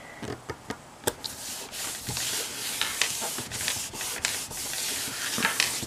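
Hands rubbing a freshly glued paper panel flat onto card: a dry, steady hiss of skin sliding over paper, after a few small taps and crinkles in the first second.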